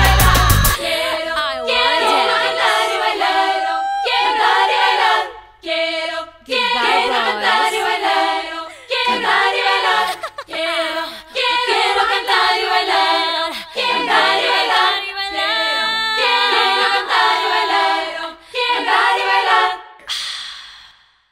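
Pop song in which the backing band drops out about a second in, leaving several voices singing together unaccompanied in short phrases with brief gaps. The singing fades out near the end.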